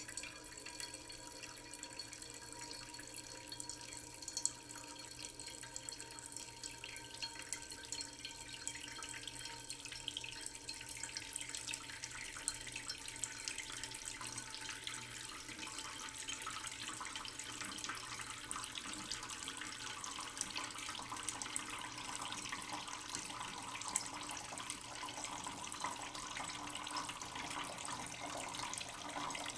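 Tap water running slowly into a cooking pot in a sink: a steady trickling splash that gets a little louder and busier from about halfway.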